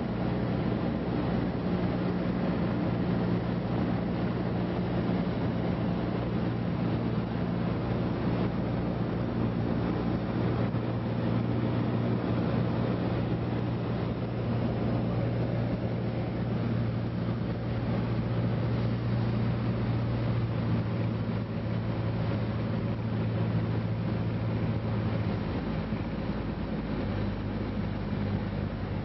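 Cessna 152's four-cylinder Lycoming O-235 engine and propeller running steadily in flight, heard inside the cabin with rushing air noise. The engine note steps down to a lower pitch about 25 seconds in.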